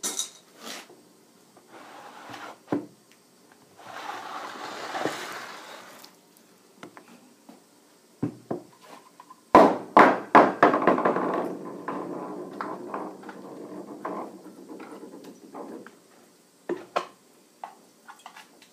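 Tools knocking and scraping on a wooden workbench and against a metal bowl, irregular. Midway there is a quick run of sharp knocks followed by several seconds of steady scraping, as of plaster being scraped off a knife.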